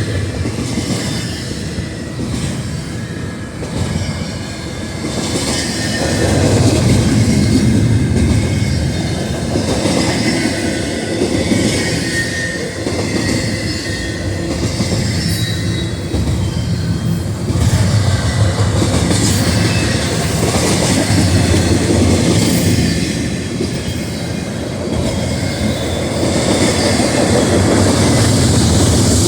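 Double-stack container freight train rolling past: a steady rumble of wheels on rail that swells and eases as the cars go by, with a thin wheel squeal at times.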